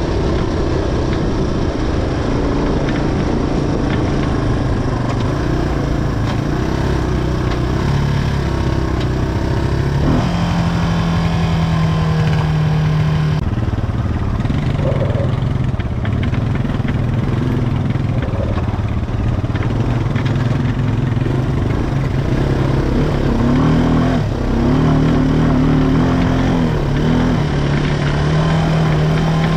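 ATV engine running continuously under way, its pitch shifting up and down as the throttle changes, with rushing noise from the ride over it.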